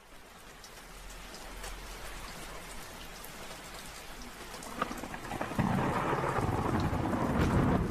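Rain and thunder sound effect fading in: steady rain with scattered drops, then a low rumble of thunder swelling over the last couple of seconds.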